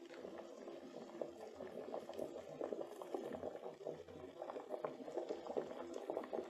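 Vegetable soup boiling in an electric kettle: a dense bubbling of many small pops, slowly getting a little louder.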